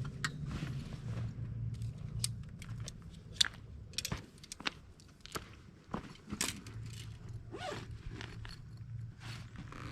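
Handling noises from taking down a canvas swag tent: irregular scrapes, clicks and zipper-like rasps as the fabric, zips and poles are worked.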